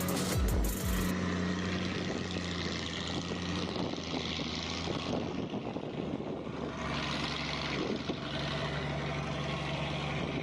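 Engine of harvest machinery, a combine harvester or truck, running steadily with a constant low drone. There are a few low thumps in the first second, and the engine note drops a little about six seconds in.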